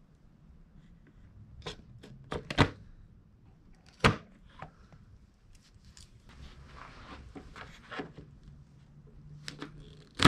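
Tin snips cutting the thick plastic rear fender of a Honda CRF450RL dirt bike: a series of sharp snaps and clicks as the blades bite and the plastic cracks, loudest about two and a half seconds in and again near the end, with rustling of the plastic being handled in between.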